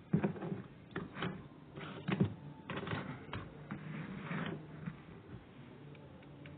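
Handling noise from the phone filming the paper and from the paper sheet: a run of rustles, scrapes and sharp taps, loudest just after the start and about two seconds in, dying away after about four and a half seconds.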